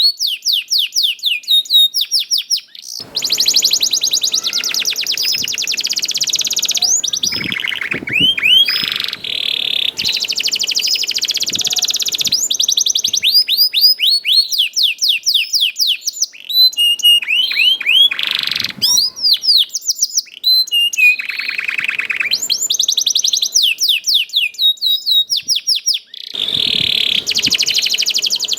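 Domestic canary singing a long, fast song: rapid runs of repeated falling chirps alternating with dense, buzzing rolled trills, with only brief breaks.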